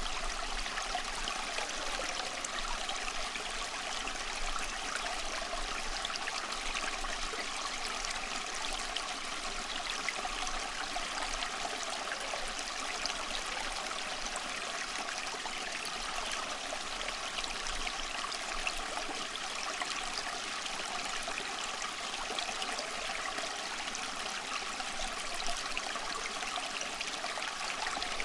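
Steady flowing-water sound like a running stream: an even rushing noise that never rises, falls or breaks.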